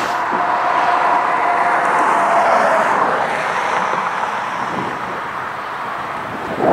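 Road traffic on a divided highway: a steady rush of tyres and engines from passing cars that slowly eases off.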